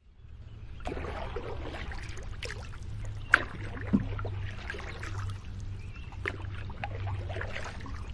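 Canoe paddle dipping and stroking through lake water, with small irregular splashes and trickles and a steady low rumble underneath. A couple of sharper knocks come a little past three seconds in and at about four seconds.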